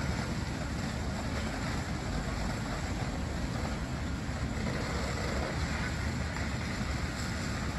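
Outdoor sound from news footage of a church engulfed in flames at night: a steady, low rushing noise from the large fire and the scene around it, with no voices.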